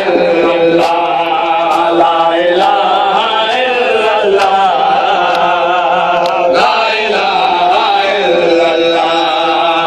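Men's voices chanting a noha, a Shia mourning lament for Muharram, in a rhythmic repeated melody. Sharp slaps land about once a second, the chest-beating (matam) that keeps time with it.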